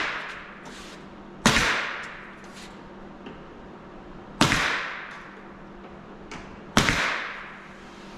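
Brad nailer tacking trim strips in place: four sharp shots a couple of seconds apart, each with a brief ringing tail.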